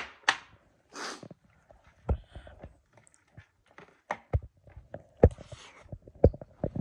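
Close-up eating by hand: irregular wet mouth clicks and smacks from chewing, with fingers working rice and curry on a steel plate and a few soft breaths.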